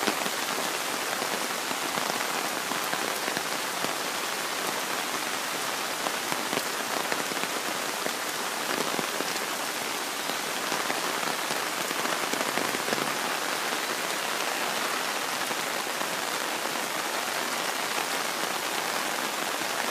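Steady rushing hiss of water with fine crackling patter throughout.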